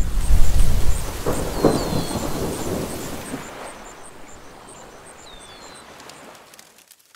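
Logo-reveal sound effect: a loud, thunder-like rumbling whoosh that fades away over about six seconds, with faint, evenly spaced high twinkles and a few short falling chirps above it.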